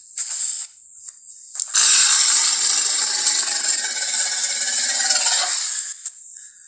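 Jurassic Park Tyrannosaurus rex roar sound effect: a short rough call at the start, then a loud, rasping roar of about four seconds that begins abruptly about two seconds in and dies away near the end.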